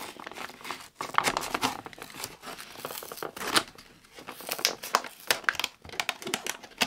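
Plastic blister pack and its cardboard backing crinkling, crackling and tearing in quick irregular bursts as they are pried apart with a metal nail file.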